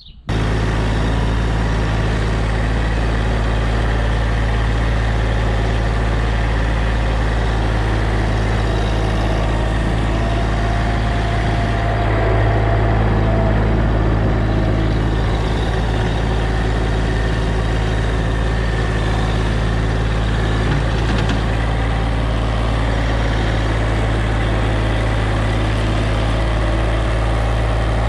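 An engine running steadily at an unchanging speed, swelling slightly about halfway through.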